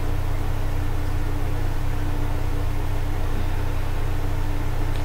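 Steady low hum with a hiss of background noise and a faint constant tone, unchanging throughout; no speech.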